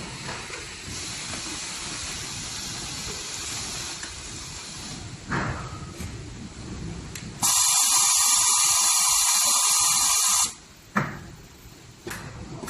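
Automatic high-frequency plastic welding and cutting machine at work: a steady hiss, a short sharp clack about five seconds in, then a loud, even hiss lasting about three seconds that starts and stops abruptly, followed by a click.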